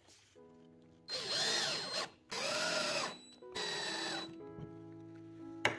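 Cordless drill-driver driving screws through a steel angle bracket into a wooden base: three short runs of the motor, each rising then falling in pitch as the screw goes in.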